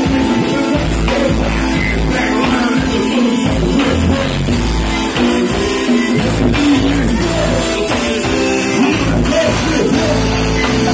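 Live band playing loud rock music, a vocalist singing into a microphone over a drum kit and guitar.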